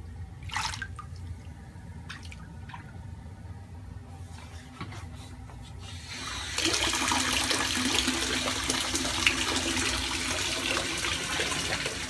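Lush bath bomb fizzing in bathwater: a steady crackly, watery hiss that comes in loud about six and a half seconds in, after a quieter stretch with a few faint clicks.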